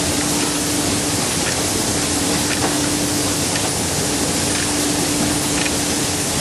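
Automatic shoe-outsole spraying machine running: a steady hiss with a constant low hum, and a few faint ticks now and then.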